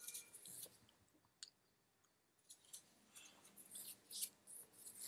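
Near silence with faint, scattered small clicks and crackles: a short cluster at the start and a denser run from about two and a half seconds in.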